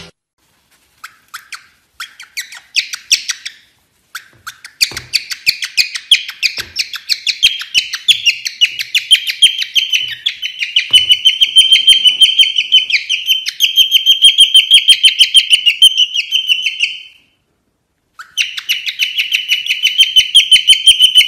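Cockatiel giving a fast, unbroken string of short chirping calls, several a second, sparse at first and growing louder and steadier; it stops for about a second near the end, then starts again.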